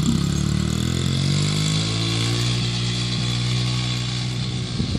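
Dirt bike engine coming down off a rev, its pitch falling over about two seconds, then idling steadily; the steady engine note ends suddenly near the end.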